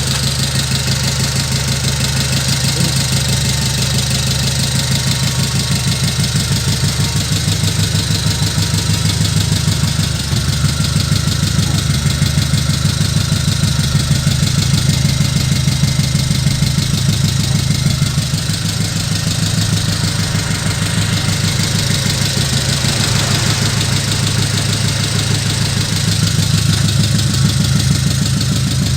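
Diesel truck engine sound idling steadily with a fast, even chug; the pitch holds level throughout.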